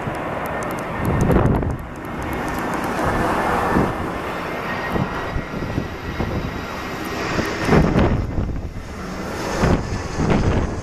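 Airbus A320 jet airliner on final approach with landing gear down, its engines making a broad jet rumble that swells and fades unevenly as it draws near.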